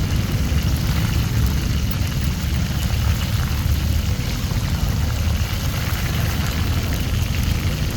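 Hot oil sizzling steadily as chicken deep-fries, over a continuous low rumble.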